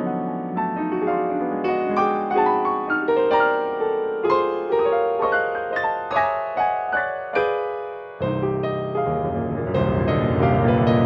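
Background piano music: single struck notes that ring and fade, with fuller low chords joining about eight seconds in.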